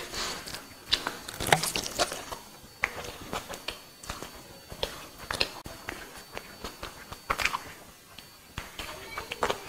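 Eating by hand, close up: fingers mixing and squishing biryani rice with curry on a banana leaf, and chewing with wet lip smacks, heard as many short irregular clicks and smacks.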